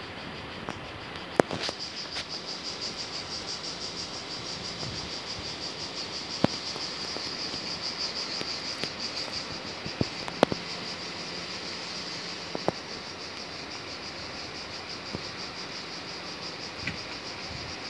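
Insects chirring steadily in a high-pitched, rapid, even pulsing rhythm that sets in about a second and a half in, with a few sharp clicks scattered through.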